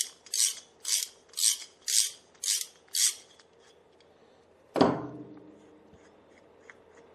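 Ratchet wrench clicking in short strokes, about two a second, winding a spark plug seat cutting tool out of a scooter cylinder head. The clicking stops after about three seconds, and a single sharp clunk follows a little before five seconds as the ratchet is set down on the workbench.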